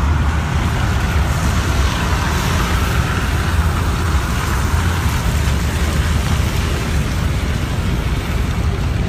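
Steady vehicle and rain noise heard from inside a car: a constant low rumble with a hiss over it.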